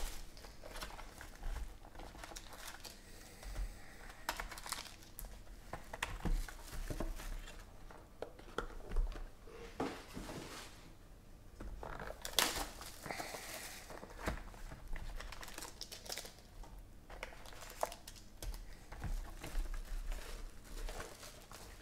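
Clear plastic shrink wrap crinkling and tearing as hands pull it off a trading-card box and handle it, in irregular crackly bursts, loudest about halfway through.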